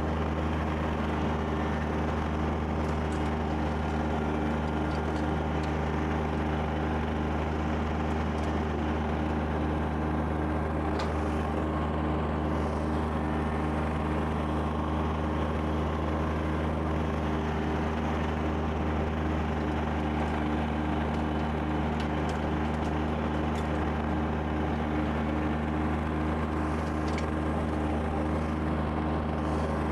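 Kubota BX2680 sub-compact tractor's three-cylinder diesel engine running at a steady speed, with its rear-mounted snow blower running, clearing light, fluffy snow.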